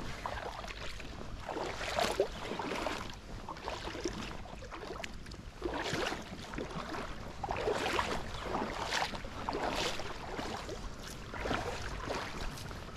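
Water sloshing and splashing in irregular bursts every second or two, over a low rumble of wind on the microphone.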